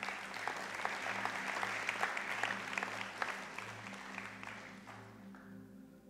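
Congregation applauding, swelling within the first second and then fading out over the next few seconds.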